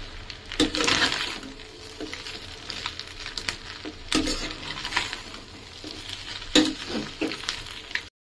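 Perforated metal spatula scraping and clinking against a stainless steel pan as fried macaroni is stirred, with a light sizzle of frying underneath. The scrapes come irregularly, the loudest about a second in and again near the end.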